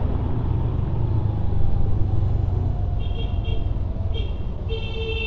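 Scooter engine running steadily with road and traffic rumble while riding. From about three seconds in come several short, high-pitched beeps, the last one longer.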